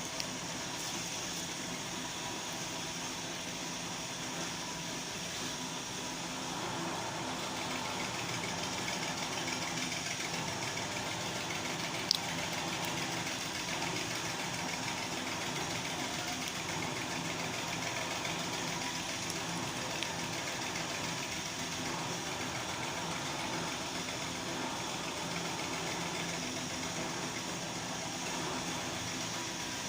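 Steady mechanical hum and drone with a few small clicks, the sharpest about twelve seconds in.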